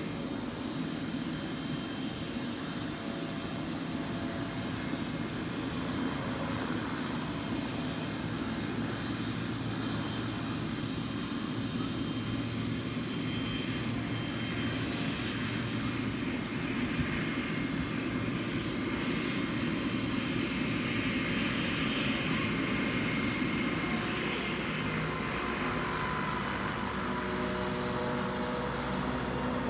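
Weight-shift microlight trike's engine and pusher propeller running steadily as it lands and taxis. A high whine slides slowly down in pitch near the end.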